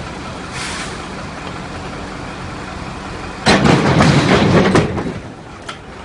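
A steady engine rumble, then about three and a half seconds in a sudden loud crash lasting over a second as an overturned excavator drops onto the ground, followed by a couple of small knocks.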